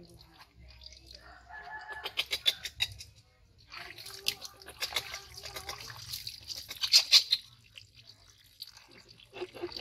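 Water splashing and dripping in quick clusters as a wet baby macaque is hand-washed beside a tub, with chicken clucks and calls from the yard.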